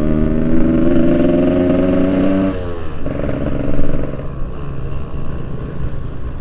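Yamaha RX-King 135cc two-stroke motorcycle engine under way, its pitch climbing steadily for about two and a half seconds as it pulls, then falling away sharply and running on at lower revs.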